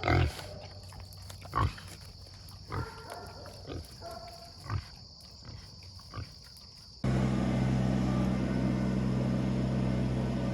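A farm animal makes a handful of short grunts and calls, spread over about six seconds. About seven seconds in, the sound cuts abruptly to a loud, steady low rumbling noise.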